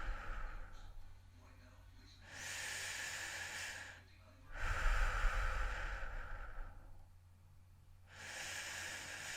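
A person breathing heavily and slowly, close to the microphone. Quieter and louder breaths alternate, with a short pause between each, at about five seconds to a full in-and-out cycle. The louder breaths carry a low rumble of air hitting the mic.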